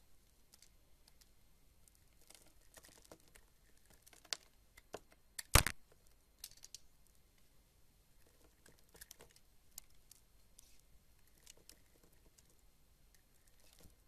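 Craft knife cutting and shaving a dry bar of white soap: scattered faint, crisp crackles and scrapes, with one sharp, much louder click about halfway through.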